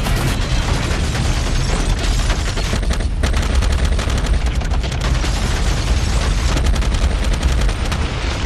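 Heavy automatic gunfire, shots following one another in a rapid, continuous stream over a low rumble, as in a battle sound effect.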